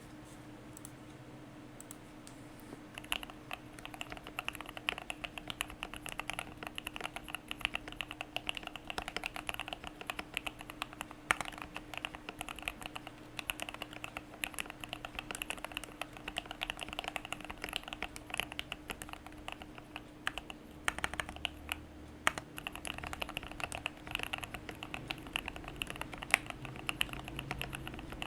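Typing on a KBD67 Lite mechanical keyboard with EMT linear switches lubed with Krytox 205g0, on an FR4 plate with PE foam and a one-layer tape mod: a steady run of keystrokes on the letter keys and spacebar. The typing starts about three seconds in and briefly thins out around twenty seconds, over a faint steady hum.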